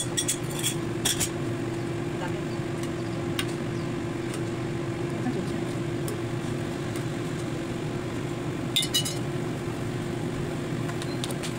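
A metal ladle clinks and scrapes against a stainless steel pot of simmering cabbage soup as it is stirred: a few sharp clinks in the first second or so and another bunch about nine seconds in, over a steady low hum.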